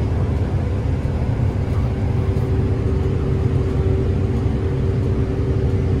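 New Holland combine running steadily while harvesting wheat, heard from inside the cab: a loud, even drone of the engine and threshing machinery, with a steady hum growing stronger about halfway through.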